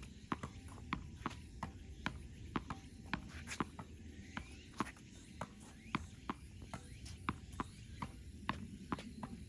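Tennis rally: a steady string of sharp pops from the ball striking rackets and bouncing on the court, a few each second.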